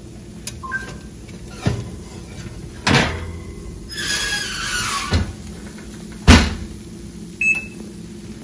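Metal baking sheet knocking and scraping against a wire oven rack as it is slid out of the oven: several sharp clanks, a scrape about four seconds in, and the loudest knock about six seconds in.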